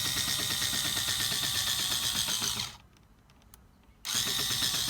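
Electric drill running in two bursts: it runs until nearly three seconds in, stops, and starts again about a second and a half later.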